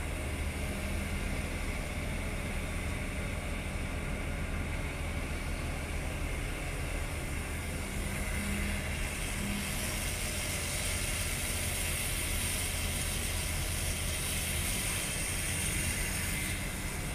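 Diesel engines of a crawler excavator and a dump truck running steadily in a low drone while the excavator loads the truck. A hiss rises over it about ten seconds in and drops away near the end.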